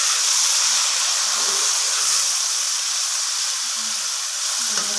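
Chopped tomatoes frying in hot ghee with onions and ginger-garlic paste in a large pot: a steady, even sizzle.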